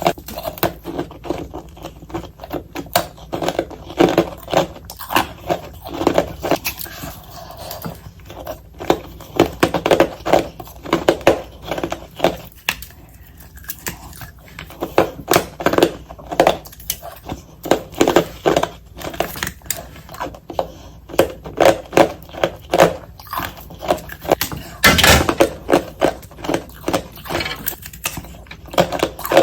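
Close-miked crunching of ice being bitten and chewed, sped up into a rapid run of sharp crunches several a second, with one louder, fuller crunch near the end.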